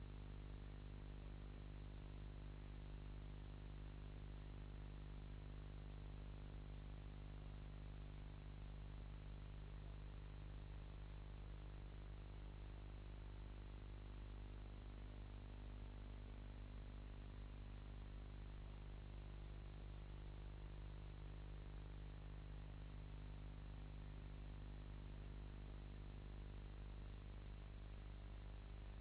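Steady low electrical hum with hiss and a faint high whine, unchanging throughout: the empty soundtrack of a silent film transfer, with no other sound.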